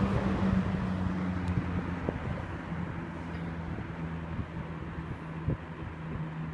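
Hunter-made Montgomery Ward Signature box fan with seven wide plastic blades slowing from medium down to its low speed: the rush of air from the blades fades gradually over a few seconds over a steady motor hum.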